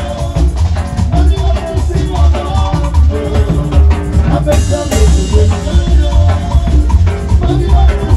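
Street band of saxophones and trumpets playing a sanjuanito over a steady, strong drum beat.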